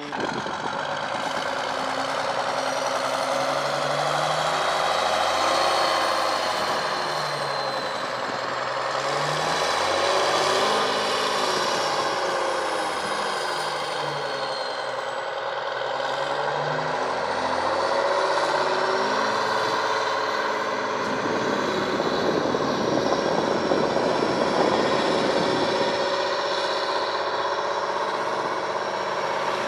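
Turbocharged Detroit Diesel 6-71 inline-six two-stroke diesel of a 1963 GMC Crackerbox cabover tractor pulling away under load, revving up and dropping back several times, with a high turbo whine rising and falling along with the engine.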